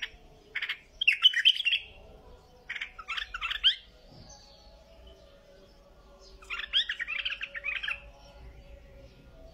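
White-eared bulbul singing in short bursts of quick chirping notes, with a couple of brief phrases near the start, a longer one around three seconds in and another late on, separated by quiet gaps.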